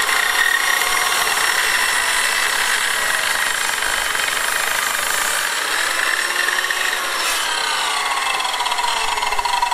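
Electric sliding compound mitre saw running and cutting through a whole pack of wooden boards in one long cut. A steady high motor whine runs with the blade rasping through the wood, and the whine drops in pitch in the second half.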